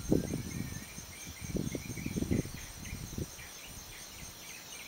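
Wind buffeting the microphone in gusts for the first three seconds or so, over a steady high trill of insects and scattered bird chirps.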